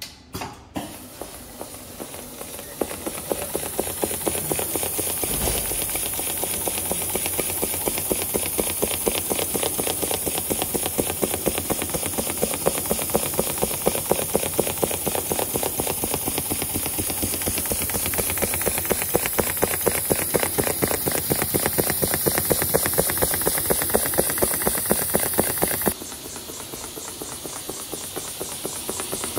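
ABM CNC Quilter computerised quilting machine stitching leather seat hides: a few clicks as it starts, then a fast, even run of needle strokes that builds up over the first few seconds and keeps going, with a high hiss over it that drops away near the end.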